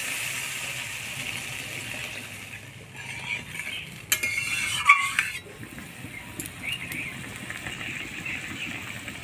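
Water poured into a hot metal kadai of spiced curry masala and brinjal hisses at the start. About three to five seconds in, a spatula stirs and scrapes against the pan, the loudest part, with a clatter near the end of the stirring. Then the curry bubbles at the boil.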